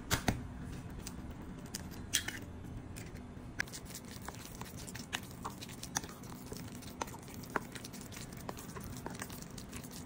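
A plastic spatula stirring a sticky ground-meat siomai filling in a bowl: irregular small clicks and squelches, the loudest ones near the start, over a steady low hum.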